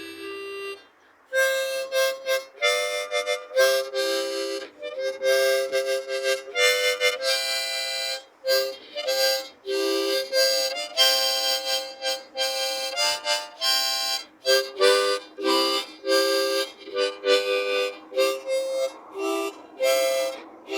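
Harmonica playing a lively tune of short, quick notes and chords. After one brief opening note and a short pause, it plays on without a break.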